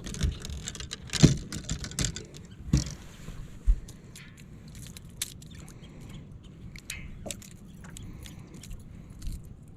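Gear being handled on a fishing boat: several sharp knocks and clatters in the first few seconds, then a low steady background noise with a few faint ticks.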